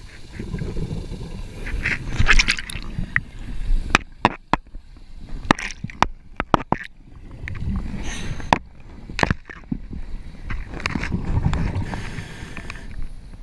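Underwater sound picked up by a submerged camera: swells of gurgling, bubbling water noise, with a run of sharp clicks and knocks through the middle.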